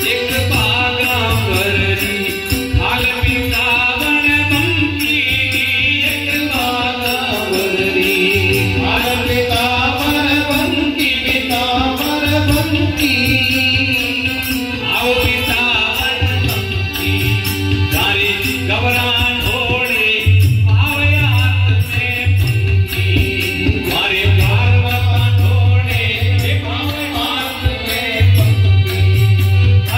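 A male voice sings a Hindu devotional bhajan with harmonium accompaniment, held tones under the melody, and tabla drumming that sounds deep bass strokes.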